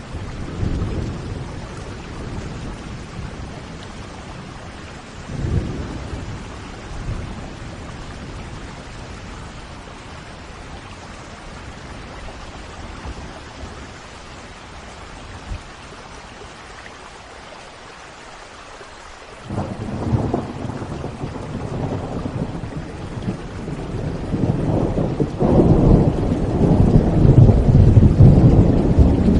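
Thunderstorm: steady rain with rolling thunder. A rumble comes about five seconds in, thunder breaks in suddenly about two-thirds of the way through, and the rumbling grows loudest near the end.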